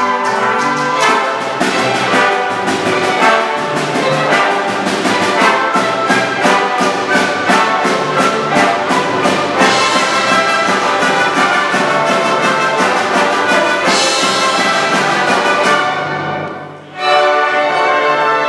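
Orchestra playing an arrangement of Mexican sones, with trumpets and trombones to the fore over strings and flutes in a lively, rhythmic passage. Near the end the music breaks off for a moment and comes back in with held chords.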